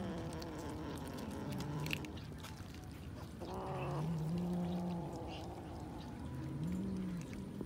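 Cats feeding on raw fish, making low drawn-out growling calls in turn, with one higher, shorter meow-like call about three and a half seconds in. Small clicks of chewing run underneath.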